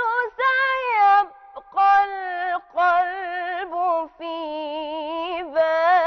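A woman singing an Arabic nasheed in a solo voice, drawing out long, ornamented notes that waver and bend, with a few brief breaks between the phrases.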